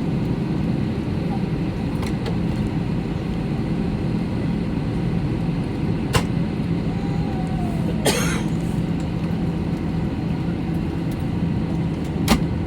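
Steady low drone of an Airbus A321 cabin during pushback, with a few sharp clicks about six, eight and twelve seconds in.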